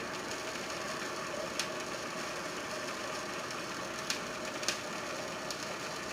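A small electric motor humming steadily, with a few faint clicks scattered through it.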